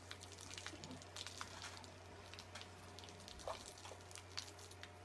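Faint scattered drips and small splashes of water as African elephants drink at a waterhole, over a steady low hum.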